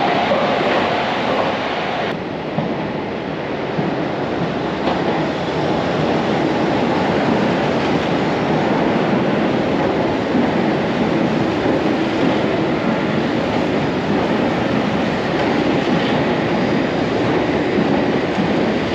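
A train running on the rails, a steady loud rumble that changes abruptly in tone about two seconds in.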